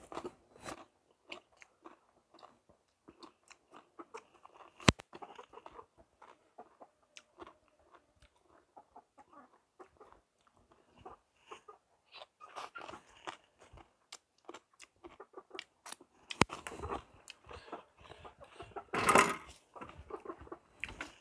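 A man chewing and crunching mouthfuls of spicy green papaya salad and rice noodles, with scattered small clicks and smacks. A single sharp click about five seconds in is the loudest sound, and there is a louder burst of noise near the end.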